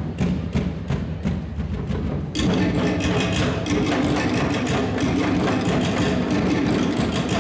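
Tahitian-style drum music for the dance: separate sharp wooden knocks at first, then about two and a half seconds in the full drum ensemble comes in with a fast, dense, driving beat.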